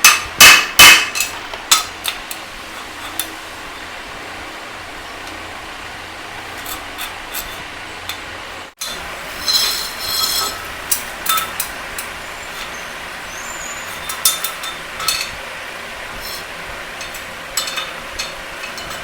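Irregular sharp metallic strikes and clinks, like tools knocking on metal, over a steady background hum. The sound drops out briefly about nine seconds in, and the strikes then go on.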